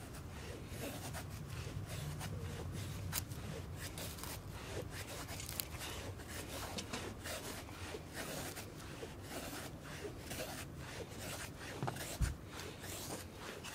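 Dry firewood scraping and rustling, with many small irregular sharp clicks and snaps.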